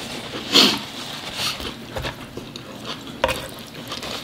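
Close-miked eating and food handling: mouth sounds of chewing and the soft clicks and rustles of hands pulling rotisserie chicken apart on a wooden board, loudest about half a second in.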